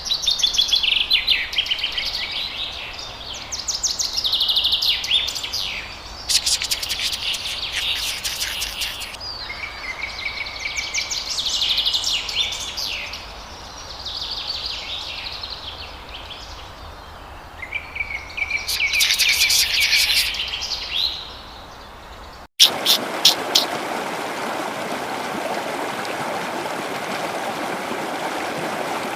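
An animal's high chirping calls, given in repeated rapid bouts of one to three seconds each. After a sudden cut near the end, a steady rushing noise takes over with a few sharp clicks.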